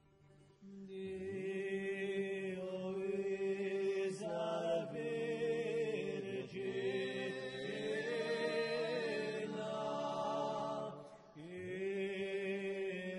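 Corsican male vocal quartet singing polyphony a cappella: a low voice holds a steady drone under wavering, ornamented upper lines. The voices come in about half a second in, break off briefly about eleven seconds in, then carry on.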